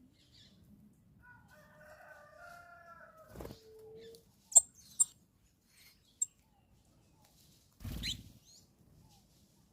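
A rooster crows once, a long call of about three seconds beginning about a second in. It is followed by three short, sharp, high clicks, which are the loudest sounds here, and near the end by a brief thump with a rising squeak.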